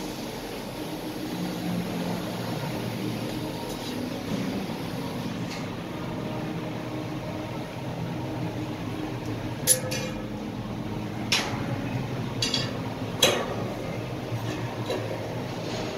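A steady mechanical drone, such as a machine or fan running, with a few sharp metallic clinks in the second half, about four of them.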